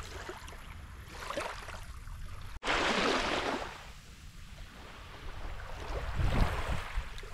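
Small waves washing in and drawing back on a sandy beach, each wash swelling and fading, over a low wind rumble on the microphone. The sound jumps about two and a half seconds in to a louder wash, and another wave comes in near the end.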